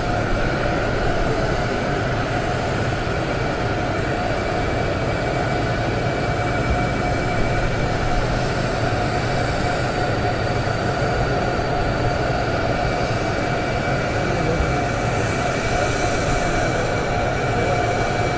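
Jet aircraft engines running on the tarmac: a steady high whine over a low rumble, unchanging throughout.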